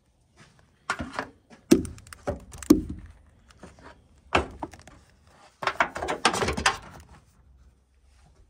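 A series of sharp knocks and clunks, with a denser clatter of rattling about six seconds in.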